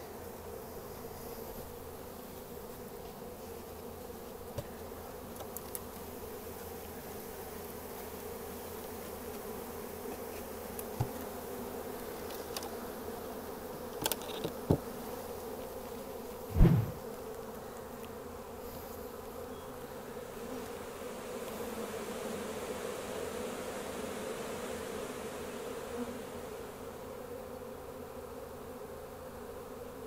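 Steady hum of a honey bee swarm flying around a hive just after being shaken into it. A few short knocks break in, the loudest a thump about halfway through.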